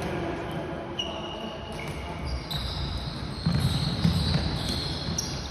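Sounds of a floorball game in a sports hall: players' shoes squeaking on the court floor, with a few sharp clacks of sticks and ball, echoing in the hall.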